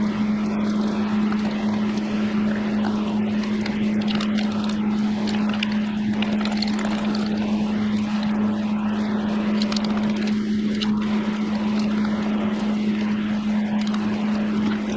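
A steady mechanical drone with a constant low hum, under a few faint scattered clicks.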